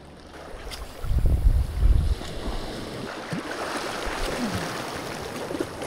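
Wind buffeting the microphone about a second in, then small waves washing steadily over shoreline rocks.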